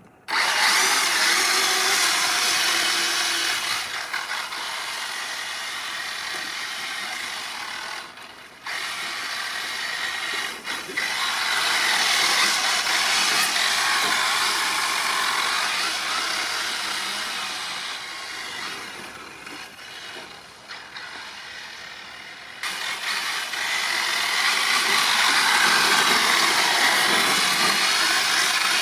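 Kyosho DRX VE radio-controlled rally car's brushless electric motor and drivetrain whining under a dense hiss of tyres on ice. The sound swells and falls with the throttle over several seconds at a time, dips sharply about eight seconds in, and jumps in level a few times.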